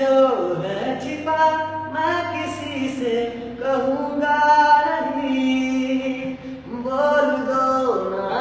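A man singing a cappella, holding long notes and sliding between pitches.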